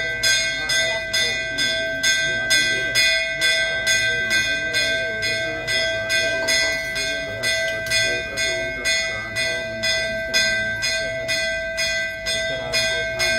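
Temple bell rung steadily, about two strikes a second, each ring carrying on into the next. Faint voices underneath.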